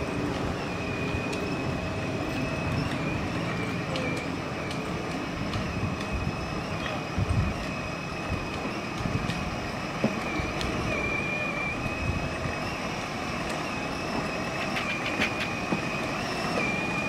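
Battery-powered ride-on toy car driving along a paved road: a steady high whine from its electric motor and gearbox over the low rumble of tyres and a slow-following SUV's engine, with a few faint clicks.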